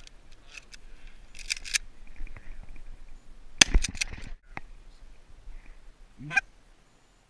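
A single loud shotgun shot a little past halfway, the loudest sound. Canada goose honks around it, one clear honk near the end.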